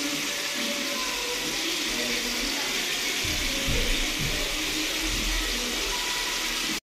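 Coconut-milk sauce simmering in a pan, a steady bubbling hiss, with a low rumble for a couple of seconds in the middle; the sound cuts off abruptly near the end.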